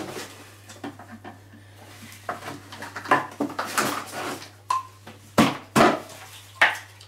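Irregular clicks and knocks of hard plastic as a screwdriver prises at a pressure washer's wheel and the wheel is worked off its axle, the two loudest knocks close together a little past halfway.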